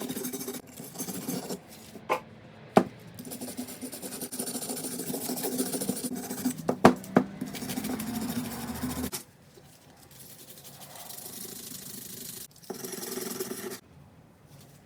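Hand wire brush scrubbing the last of the rust off a old hand plane's steel parts, with a few sharp knocks of metal along the way. The scrubbing turns much quieter about nine seconds in, then comes back briefly near the end.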